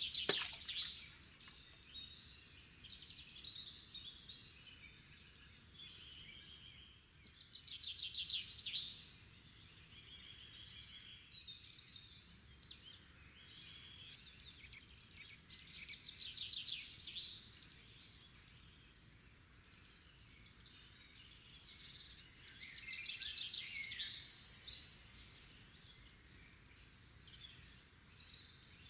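Songbirds singing in short, rapid trilled phrases, with three louder bursts of song, the longest near the end, over a faint steady background.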